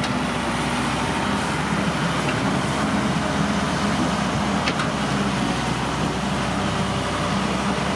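Caterpillar excavator's diesel engine running steadily while the boom and bucket dig, with a faint click about four and a half seconds in.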